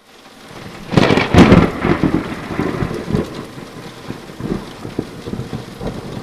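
Thunderclap sound effect with rain: a swell from silence, a loud crash about a second in, then a long crackling rumble that slowly fades.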